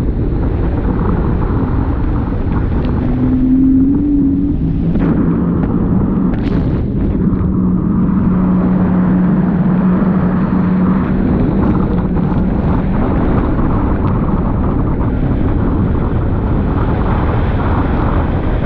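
Jet ski running at speed over choppy water, its engine drone mixed with wind and rushing water. The engine's pitch shifts with the throttle, then holds steady for a few seconds in the middle.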